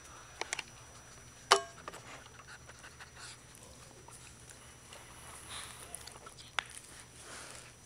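A Chihuahua gives one sharp, high yip about a second and a half in, the loudest sound here, after a couple of shorter sharp sounds just before it. A short click follows near the end.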